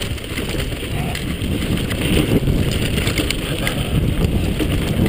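Mountain bike riding fast down a dirt trail: tyres rumbling over the ground with small clicks and rattles, under heavy wind noise on the microphone.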